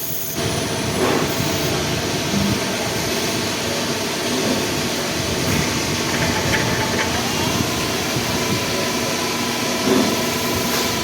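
CNC machine running with steady mechanical noise. About seven seconds in, a whining tone steps up in pitch and holds.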